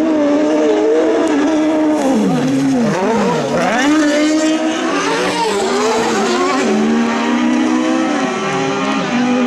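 Several 1600 cc autocross buggy engines running hard as the cars race on a dirt track, their overlapping notes holding at high revs. About three seconds in, the revs drop sharply and climb again twice, as the drivers lift and get back on the throttle.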